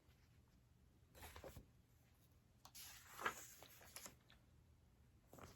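Mostly quiet room tone, broken by two brief papery rustles, the second with a sharp crinkle about three seconds in: a picture book's page being handled and turned.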